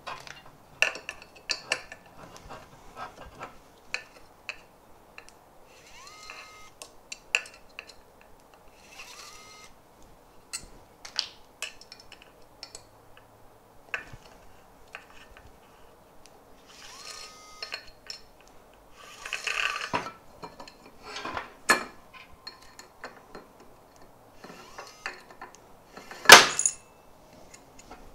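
ES121 electric screwdriver whirring in short runs, with a rising whine as it spins up, while screws come out of a plastic case. Clicks and clinks of screws and small metal parts run throughout, with one sharp clack near the end.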